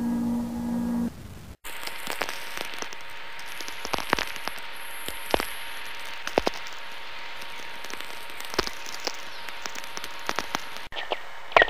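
A low steady hum stops about a second in; after a brief pause, radio-like static follows: an even hiss full of irregular crackles and sharp clicks, with a faint steady tone under it, which cuts off abruptly near the end.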